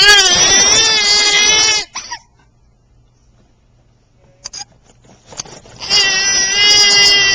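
Two long, loud, wavering cries: one ending about two seconds in, and another starting about six seconds in, with near quiet between them.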